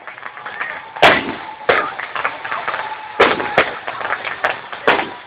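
Aerial fireworks shells bursting: a series of sharp bangs, one about a second in, then a cluster from about three seconds on.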